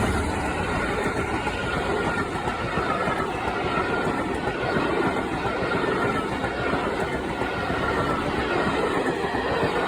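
Train hauled by two Class 47 diesel locomotives passing at speed: a steady rush and clatter of wheels on rail, with a faint held whine. It begins to die away near the end.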